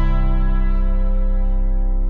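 Background music: a sustained brass-like chord held and slowly fading.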